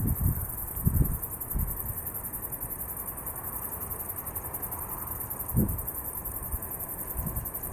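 Insects, crickets or cicadas, trilling steadily in a fast, even pulse, with a few short low thumps, like wind buffeting the microphone, near the start and again about five and a half seconds in.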